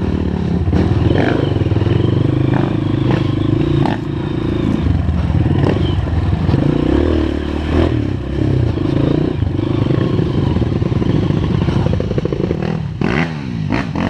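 Honda CRF230 trail bike's air-cooled four-stroke single-cylinder engine running at low, shifting revs while riding over rough, rutted ground, with clattering knocks from the bike over the bumps.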